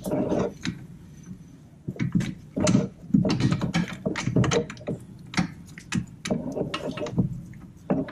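Irregular metallic knocks, clinks and scrapes as the 2017 Toyota Camry's rear strut and spindle are wiggled by hand to line up for the mounting bolts. The knocks are busiest a few seconds in.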